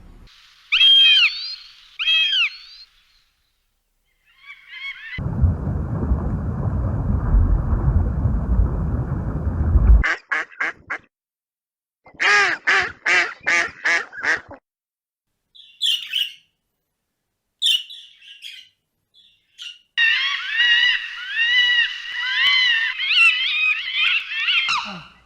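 Ducks quacking in a series of short cuts: a few single calls, a run of about eight rapid quacks, and near the end many birds calling at once. In the middle, a few seconds of steady rushing noise break up the calls.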